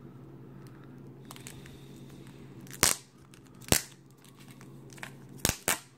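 Card packaging being handled and opened: four sharp snaps and clicks, two of them close together near the end, with faint crinkling between, over a steady low hum.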